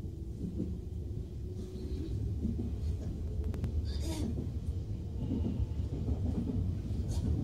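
Odakyu Line electric train running along the track, heard inside the cab area: a steady low rumble of wheels on rail that grows gradually louder, with a couple of brief clicks and a short hiss about four seconds in.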